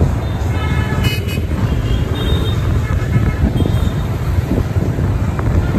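Road vehicle travel noise: a steady low rumble, with short higher-pitched toots about a second in and again about two seconds in.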